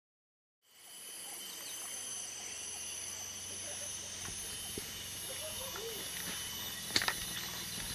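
Tropical rainforest ambience fading in: insects singing steadily in several high-pitched tones, one of them pulsing about once a second. A sharp snap comes about seven seconds in.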